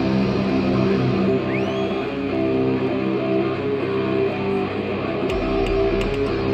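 Rock band playing live: an electric guitar picks a repeating riff of held notes, and a deep bass comes in about five seconds in, along with a few sharp drum or cymbal hits.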